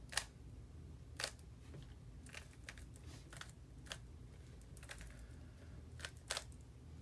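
Rubik's Cube layers being twisted by hand: about nine short plastic clicks at irregular intervals, over a low steady background hum.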